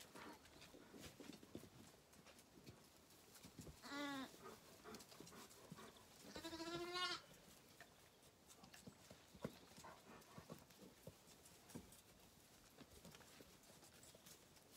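Zwartbles lamb bleating twice: a short bleat about four seconds in, then a longer, wavering bleat a couple of seconds later. Faint scattered taps and rustles in the straw come in between.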